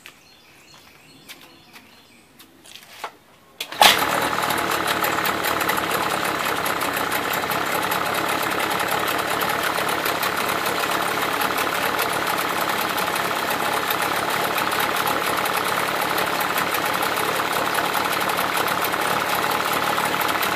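Mercury 25 XD two-cylinder two-stroke outboard, its lower unit in a test barrel of water, catching at once about four seconds in after a few faint clicks, then running steadily.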